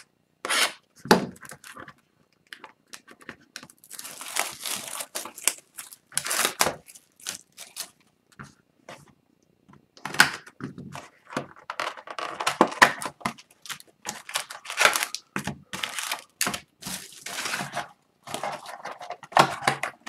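Sealed Upper Deck SPX hockey card box being cut open with a box cutter: shrink-wrap and cardboard tearing and crinkling in irregular bursts with short pauses, then the foil packs rustling as they are taken out.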